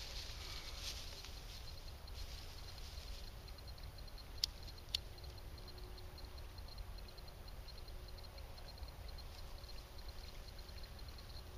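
Rustling of a bundle of dry grass tinder being handled, then two sharp clicks about half a second apart as a Bic lighter is flicked to light it.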